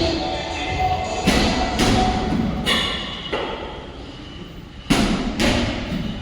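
Heavy thumps, six in three pairs about half a second apart, over background music.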